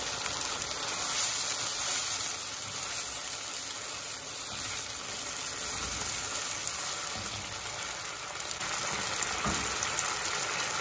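Watery chili-and-basil sauce sizzling and simmering in a nonstick wok just after a splash of water, with a spatula stirring through it. The sizzle eases a little about two seconds in.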